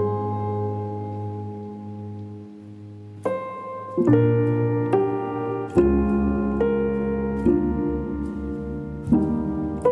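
Slow, calm solo piano music. A held chord fades away over the first few seconds, then new chords are struck every second or two.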